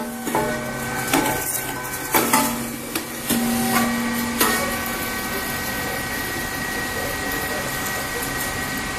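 Rice cake popping machine running with a steady mechanical hum, with four sharp pops in the first half as the heated mould bursts grain into puffed cakes.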